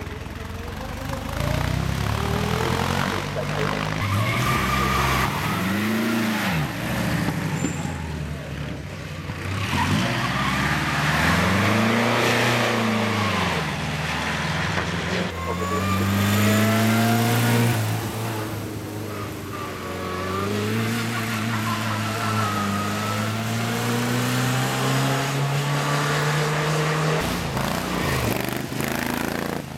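Vintage racing car engines running hard up the hill climb, their pitch rising under acceleration and dropping at gear changes and as each car goes by, one car after another.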